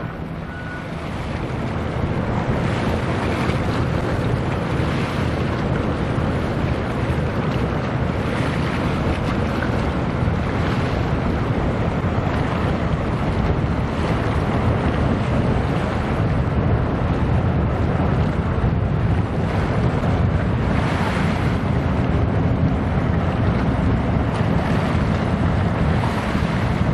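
Wind buffeting the microphone in gusts over a steady low rumble of a passing cargo ship and the water.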